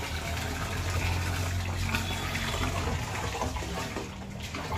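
Water gushing from a pipe into the cows' water container over the steady low hum of an electric water pump. The hum and the flow fade near the end as the pump is switched off.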